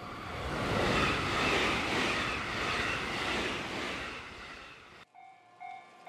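A train passing over a level crossing: a rushing rumble that swells, holds and then fades away. About five seconds in, the crossing's warning bell starts, with a repeating ding about twice a second.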